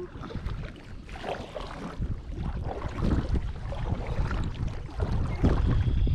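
Kayak on a river: paddle splashing and water moving around the boat, with wind buffeting the microphone in a low rumble that grows louder in the second half.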